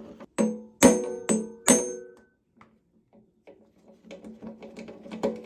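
Metal parts clinking: four sharp, ringing metallic strikes in the first two seconds, then quieter scattered clicks and light rattling, during work taking apart a motorcycle fuel petcock.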